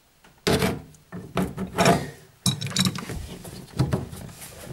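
A spanner and hands working a flexible water-hose fitting in cramped pipework: a few knocks and clanks, with a longer rubbing scrape between one and two seconds in.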